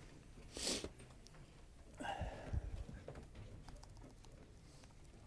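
Quiet room noise from a lecture-hall audience: scattered small clicks and rustling, with a brief rustle about half a second in and a short voice-like murmur about two seconds in.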